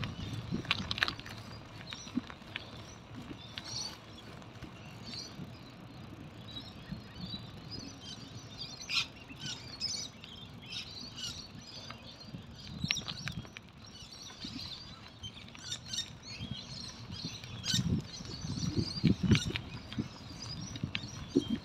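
Birds chirping in the trees, with knocks and rattles from a bicycle ridden along a paved path, heaviest near the start and again near the end.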